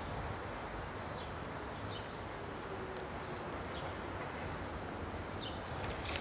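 Outdoor park ambience: a steady background hush with a few faint, short bird chirps scattered through it.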